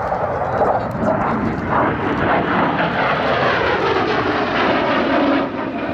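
F-16 Fighting Falcon's jet engine during a pass, a loud rushing jet noise that builds over the first few seconds and then falls off sharply near the end.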